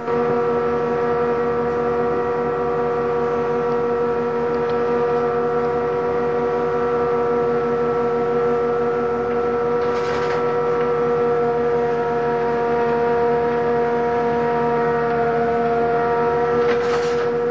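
Ship's horn sounding one long, steady, unbroken blast, with two brief hisses about ten seconds in and near the end.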